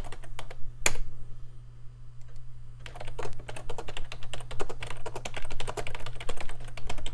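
Typing on a computer keyboard: a few keystrokes, a pause of about two seconds, then a quick run of keystrokes, over a steady low hum.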